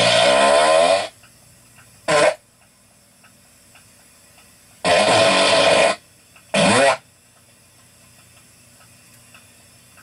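Fart sounds: a long blast of about a second, a short one about two seconds in, another long one about five seconds in, and a short one near seven seconds, each with a wavering pitch. Faint small clicks come between the blasts.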